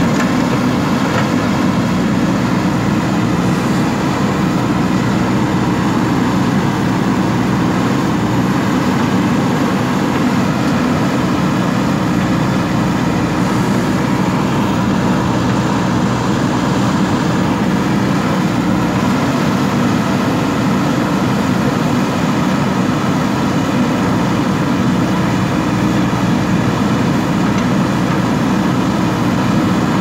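JCB 3DX backhoe loader's diesel engine running steadily under load while the backhoe arm digs and lifts soil.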